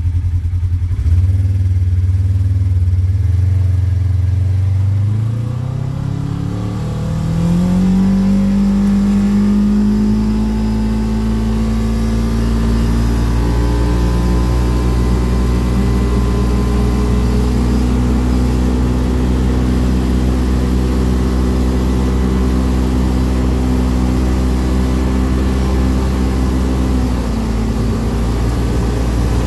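Vehicle engine pulling away, its pitch climbing over the first several seconds, then running steadily at cruising speed, with a small step in pitch near the end. Tyre and road noise from a gravel road run underneath.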